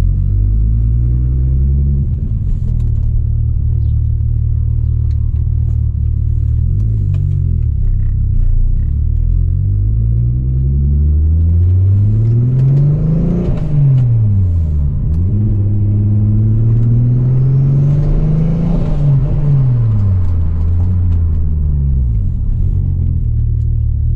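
Turbocharged VW Corrado VR6 engine running while driving, its revs climbing and falling twice, with a steady drone in between.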